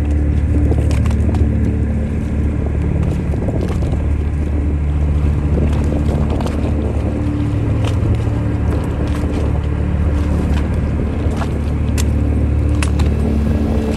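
Tuna longline fishing boat's engine running with a steady low hum, with a few sharp clicks scattered through it.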